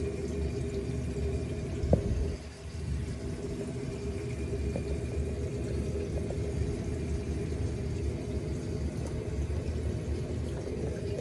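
Reef aquarium pumps running: a steady motor hum over a low rumble of circulating water. A single knock comes about two seconds in.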